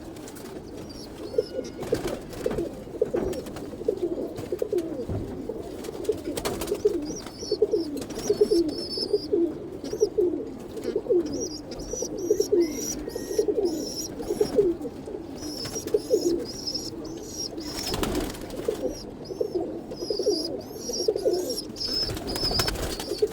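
Pigeons cooing over and over in short low notes, several a second. High thin peeping notes join in at times, and there are a few clicks.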